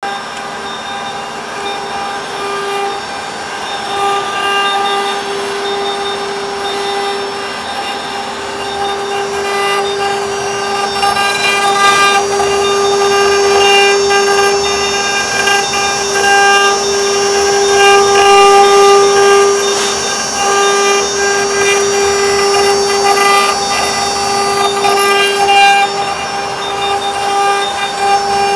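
Spindles of a six-head CNC router running with a steady high-pitched whine while their bits carve wood, with the noise of the cutting underneath.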